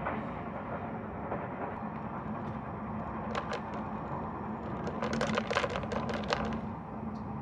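Steady running rumble and hum inside the cabin of the Spacia X electric train. A run of light clicks and crackles in the second half comes from a lidded plastic cup of iced drink being handled.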